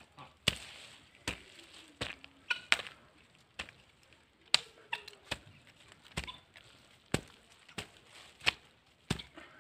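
Garden hoe chopping repeatedly into soil while digging: a steady run of sharp strikes, roughly every two-thirds of a second.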